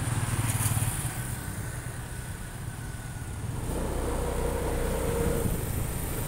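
Street traffic of motor scooters and motorcycles passing, with a low engine rumble that is loudest in the first second as a scooter goes by close. A steadier engine hum comes in a little past the middle.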